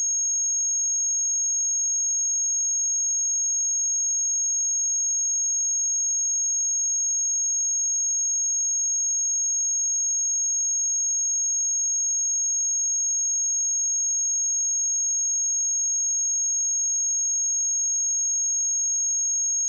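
A pure 6537 Hz sine test tone, a single steady high-pitched whistle held at an even level.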